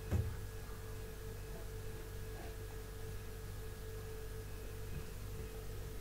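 Steady low electrical hum with a thin steady tone above it, and one soft low thump just after the start.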